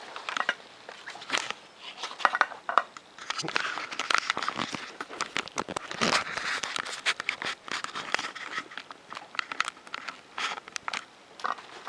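Scissors snipping through a thin Depron foam sheet with paper plans taped to it, with crackling and rustling of the paper and foam as the pieces are handled; the snips and crackles come irregularly, busiest in the middle.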